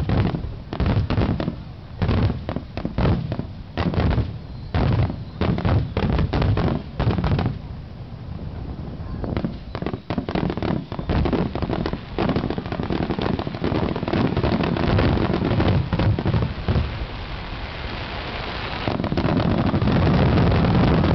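Aerial fireworks shells bursting overhead: a quick series of separate bangs, which from about eight seconds in merge into a denser, near-continuous barrage that is loudest near the end.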